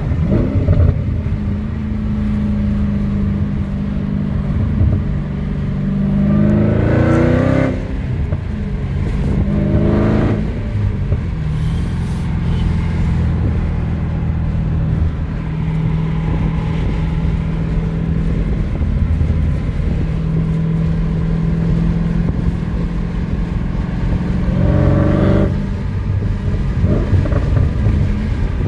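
Dodge Challenger SRT Hellcat's supercharged 6.2-litre HEMI V8 with its mid mufflers deleted, heard from inside the cabin while cruising at highway speed: a steady low exhaust drone. Three times the note climbs under throttle and then drops off suddenly, the longest climb several seconds in.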